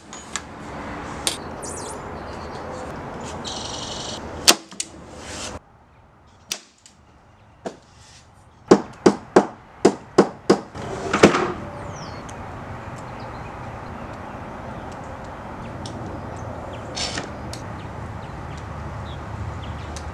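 A hammer tapping small nails into a thin plywood drawer box: a quick run of about seven sharp taps, the last the loudest. A few scattered knocks of wood handling come before it, and a steady low background noise continues after.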